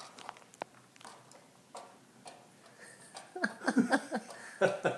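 Scattered light clicks and taps from face-paint pots and a brush being handled, followed about three seconds in by quiet, wordless voices.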